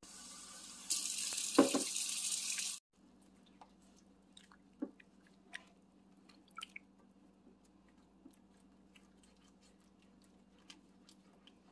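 Cream sizzling and bubbling in a hot skillet of chicken tikka masala, a loud hiss that cuts off abruptly about three seconds in. After that only faint, scattered light clicks of a silicone spatula stirring the sauce.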